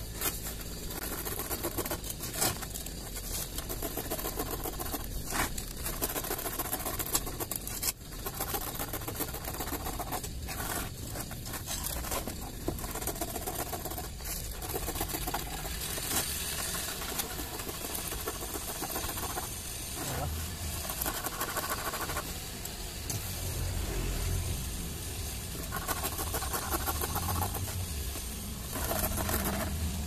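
A blade scraping and cutting through the rubber of a used motorcycle tyre's bead in repeated strokes, splitting it open to free the steel bead wire inside.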